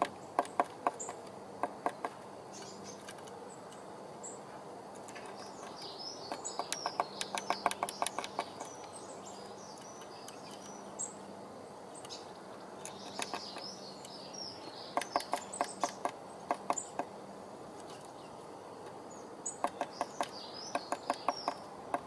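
A blue tit tapping and pecking at its wooden nest box in quick runs of sharp taps, repeated several times, with high chirping bird calls alongside some of the runs.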